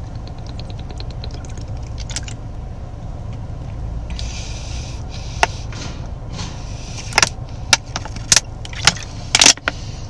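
A steady low rumble throughout, with a quick run of light ticks in the first two seconds. Sharp clicks and crackles, the loudest sounds here, come in the last few seconds.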